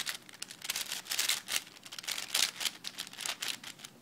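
A plastic 4x4x6 twisty puzzle cube being handled in the hands, its pieces clicking and scraping in quick, irregular bursts.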